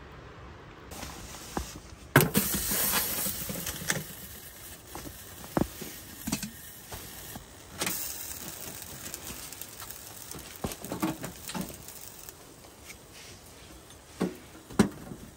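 Irregular rustling and handling noise with scattered sharp knocks and clicks; the loudest knock comes about two seconds in, followed by a second or so of louder rustling.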